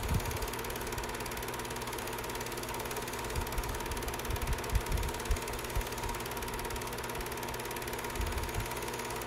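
Film projector running: a steady mechanical clatter over a constant hum, with scattered low thumps about three to six seconds in and again near the end.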